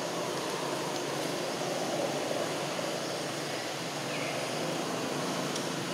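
Steady outdoor background noise, an even rush without clear pitch, with a faint short high call about four seconds in.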